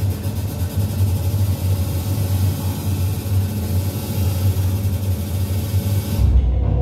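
Ambient drone soundtrack of a light installation: a steady low rumble with hiss that changes, about six seconds in, into a sustained chord of low held tones.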